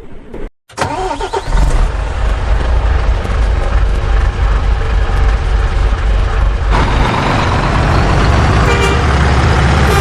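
A vehicle engine sound running steadily with a strong low hum and horn-like tones. It starts abruptly after a brief silence about half a second in, and gets brighter and fuller around seven seconds in.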